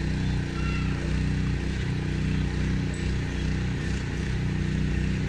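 A motor vehicle engine running steadily at one even pitch, a low hum.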